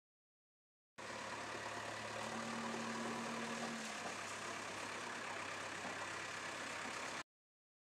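Diesel engine of a JCB 3DX backhoe loader running steadily, starting and stopping abruptly. About a second after it starts, a brief higher steady tone rides on top of it.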